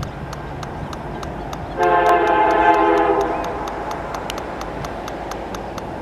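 Air horn of an approaching CN SD75I diesel locomotive sounding one blast of about a second and a half, a chord of several tones starting about two seconds in, over a steady rapid ticking.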